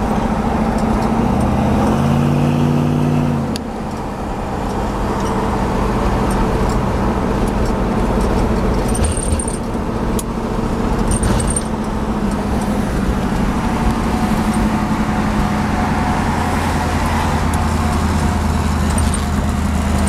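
Interior sound of a 460 cubic-inch V8 with dual four-barrel carburetors driving a car through an automatic transmission, with road noise. The engine note swells for about two seconds and drops back about three and a half seconds in, then settles to a steady cruise.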